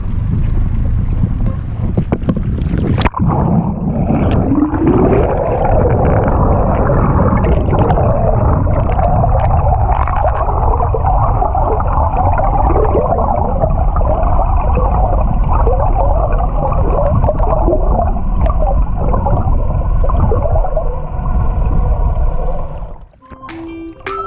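Underwater sound recorded by a submerged camera: muffled rushing water with continual bubbling and gurgling. It begins with an abrupt change from a few seconds of surface wind and water noise as the camera goes under. Near the end it stops and a few glockenspiel-like music notes begin.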